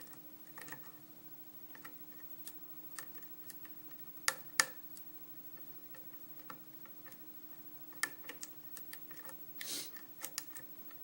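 Scattered small clicks of a lock pick working the pins inside a six-pin Arrow lock cylinder, with two sharper clicks a little over four seconds in and a brief scratchy rustle near the end.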